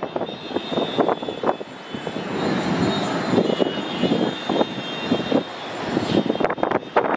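Boeing 737 MAX 8 jet airliner climbing out after takeoff: the steady rushing noise of its CFM LEAP-1B turbofans, with a thin high whine over it.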